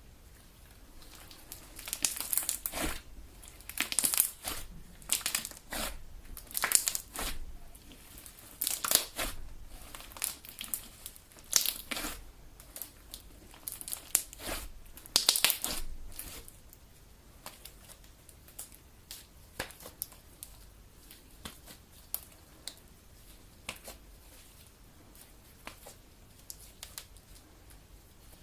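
Homemade Elmer's galaxy slime kneaded and stretched by hand: clusters of sharp, crackly clicks, loudest through the first half, then fainter and sparser.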